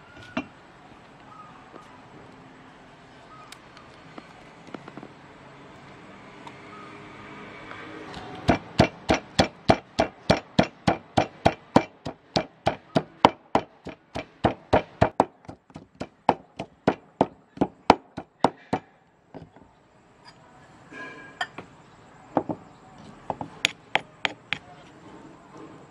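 Wooden pestle pounding garlic and red chilies in a wooden mortar: fast, even strikes, about three to four a second, for about ten seconds, then a few scattered knocks near the end.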